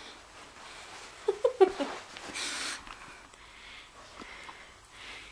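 A dog sniffing and breathing close to the microphone, with a short breathy huff about two and a half seconds in and a few brief low vocal sounds just before it.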